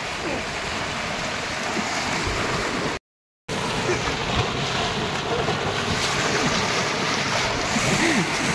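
Fast-flowing muddy floodwater rushing with a steady wash, churned up as people wade through it. The sound cuts out completely for about half a second some three seconds in.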